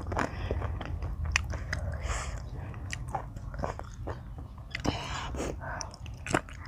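Close-up eating sounds: a person biting and chewing mouthfuls of spicy Thai seafood salad, with repeated crunches and wet mouth clicks.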